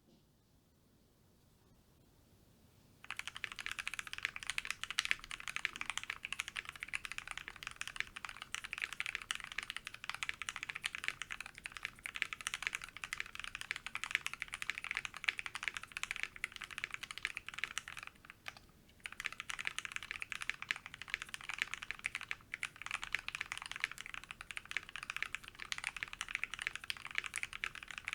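Typing on a Tofu65 mechanical keyboard with lubed and filmed Gateron Hippo linear switches on a brass plate and PBT keycaps: fast, continuous keystrokes with a thocky sound. The typing starts about three seconds in and pauses briefly about two-thirds of the way through.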